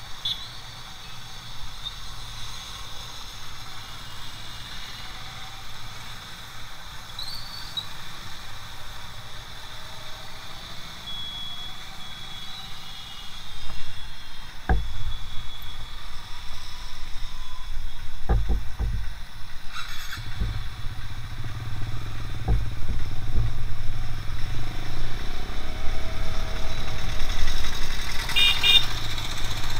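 Motorcycle engine ticking over quietly. About halfway in it pulls away and runs on along a wet road, a louder low rumble with several dull knocks from bumps or wind on the mount. A brief high chirping sounds near the end.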